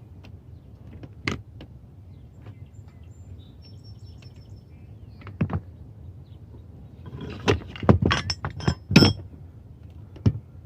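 Metal tools and copper pieces being handled, giving scattered sharp clinks and knocks, with a quick run of louder clinks about seven to nine seconds in.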